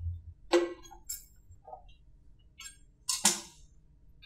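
A stainless steel container and metal kitchen utensils clinking and knocking against the counter and a sheet tray: two sharp ringing clinks, about half a second in and about three seconds in, with a few lighter clicks between.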